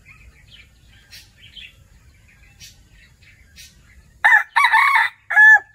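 Rooster crowing once about four seconds in, loud, in three parts, with the last note held. Before it, small birds chirp softly.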